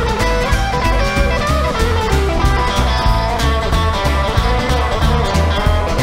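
Rockabilly band playing an instrumental passage: a Gretsch hollow-body electric guitar plays over upright double bass and drums keeping a steady beat.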